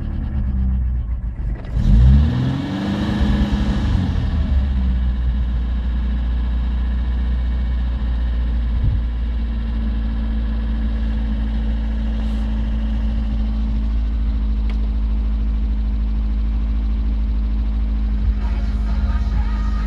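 VAZ-2104 four-cylinder petrol engine running steadily, with one quick throttle blip about two seconds in that rises and falls in pitch before settling back to a steady idle.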